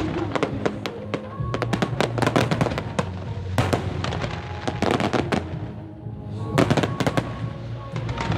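Fireworks bursting and crackling in rapid clusters of sharp reports, with music playing underneath.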